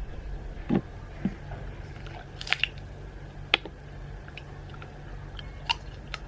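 Scattered small clicks and taps, a second or so apart, of an eye-wash bottle and its plastic eye cup being handled, the sharpest tap about three and a half seconds in, over a steady low hum.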